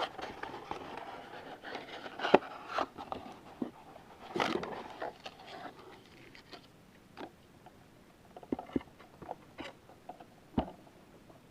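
Foil card packs and trading cards being handled: rustling with sharp clicks and snaps, a louder tearing rustle about four and a half seconds in, then a few scattered clicks as the cards are shuffled.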